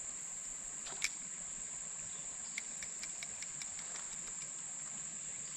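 Steady, high-pitched insect chorus of crickets or similar singing insects, with one sharp click about a second in and a short run of light ticks in the middle.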